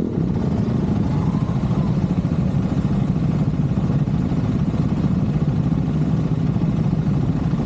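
KTM 390's single-cylinder engine running steadily with no change in pitch, heard from on the motorcycle.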